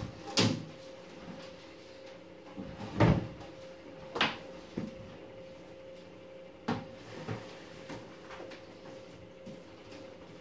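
Irregular knocks and clunks of a reptile enclosure being opened and handled, about seven in all, the loudest about three seconds in. A faint steady hum runs underneath.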